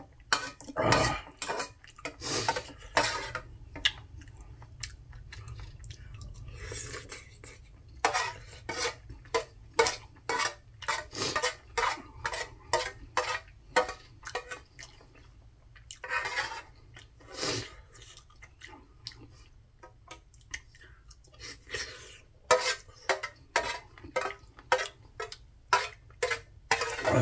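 Eating utensils clinking and scraping against a dish over and over at an irregular pace, as someone eats a meal.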